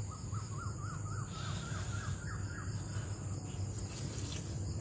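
A bird calling a quick run of about ten short, repeated notes, about four a second, that stops about two and a half seconds in. Under it are a steady, high insect drone and a low, steady hum.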